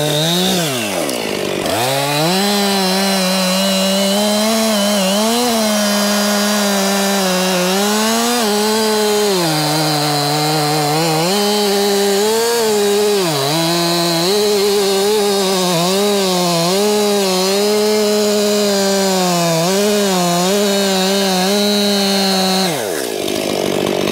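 Stihl MS261C two-stroke chainsaw running at full throttle while cutting through a hickory log, its pitch dipping and recovering again and again as the chain loads up in the cut. About a second in the revs drop and climb back, and near the end the throttle is released and the engine winds down.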